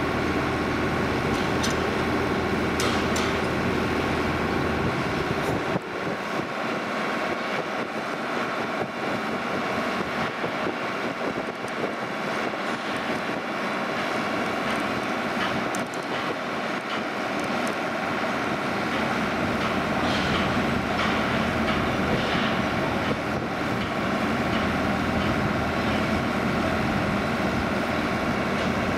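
Rail-handling gantry crane running as it moves its lifting beams over old long rails: a steady mechanical hum with several whining tones, and a couple of sharp clanks in the first few seconds. The low rumble drops away for about ten seconds and then comes back.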